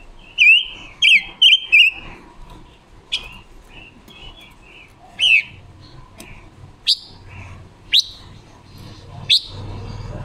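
Female silver-eared mesia calling: a quick run of four sharp, loud chirps in the first two seconds, then single sharp sweeping notes every second or two.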